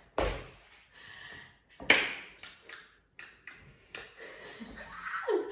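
A few sharp taps: two loud ones about a second and a half apart, then several softer ones.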